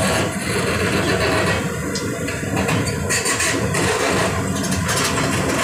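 Rock-crushing plant running: a spring cone crusher's steady low din with irregular knocks and clatter of rock, and the engine of the excavator feeding it.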